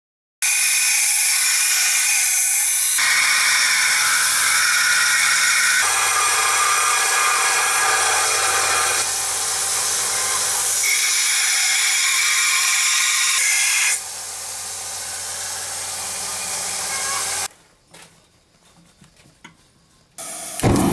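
Power grinder grinding a forged steel knife blade: a steady, hissing grind in several short segments that change abruptly. It turns somewhat quieter about two-thirds of the way through and stops near the end.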